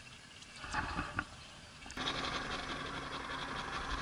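A few light knocks and rustles, then from about two seconds in the steady running of a boat's outboard motor with water noise.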